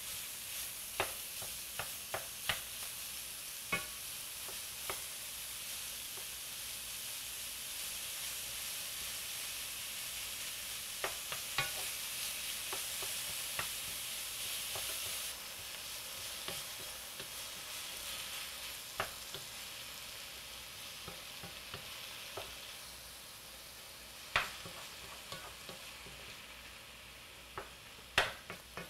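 Ground beef and ground turkey browning with onions in a hot skillet, a steady sizzle, with a wooden spoon knocking and scraping the pan now and then as the meat is broken up. The sizzle eases a little after about fifteen seconds and fades toward the end.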